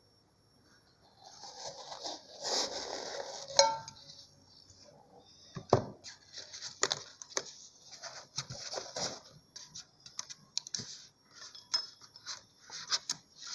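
Unboxing sounds from a watch's packaging: plastic rustling and crinkling in repeated bursts, with sharp clicks and taps. The loudest is a click about three and a half seconds in.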